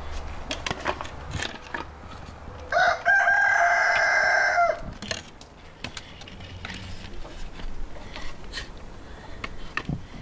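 A rooster crows once about three seconds in, one loud call lasting about two seconds. Around it come light knocks and clatter of wooden boards being handled and stacked.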